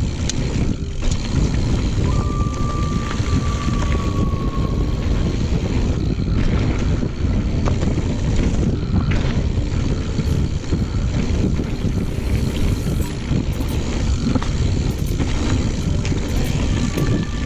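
Wind buffeting the microphone and mountain bike tyres rolling over a packed dirt trail at speed, a steady rushing noise with scattered small rattles and clicks from the bike.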